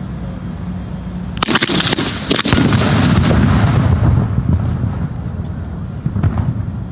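A cluster of sharp cracks about a second and a half in, then a loud blast from a professional quick match fuse burning fast and detonating an M-1000 firecracker. The blast rumbles and fades over a few seconds. A last crack comes near the end.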